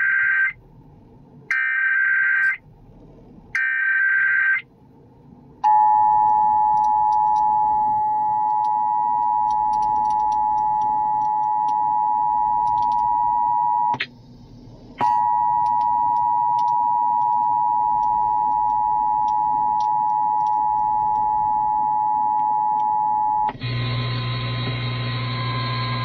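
Emergency Alert System test broadcast: three short, screechy bursts of SAME digital header data about a second apart, then the steady two-tone EAS attention signal, broken by a one-second gap midway. Near the end the tone stops and a low hum leads into the test announcement.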